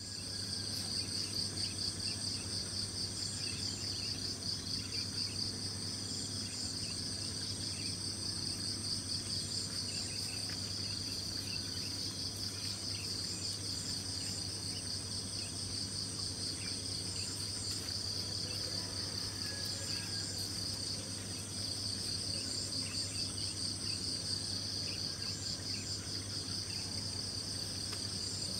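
Chorus of insects chirring in fast, steady pulses, with a low steady hum underneath.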